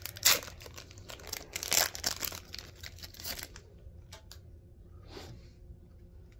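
Foil wrapper of a Pokémon card booster pack being torn open and crinkled in the hands: a quick run of sharp tearing and crackling, loudest about a third of a second and two seconds in, then a few softer crinkles as the cards come out.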